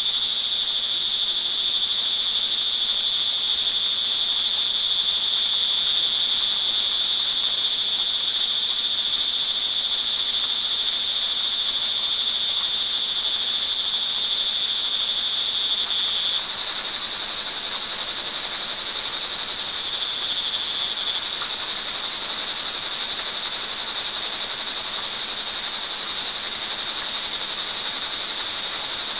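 Crickets calling in a dense, continuous high-pitched chorus, with faint rain beneath. The chorus changes slightly in pitch about sixteen seconds in and again a few seconds later.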